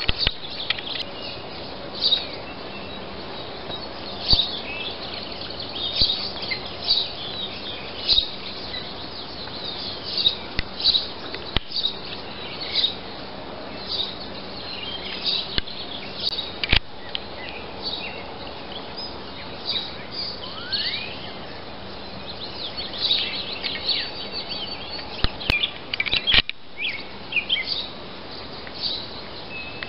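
Many wild birds singing and chirping, short high calls coming several times a second, with one rising whistle about two-thirds of the way through, over a steady outdoor rush of background noise.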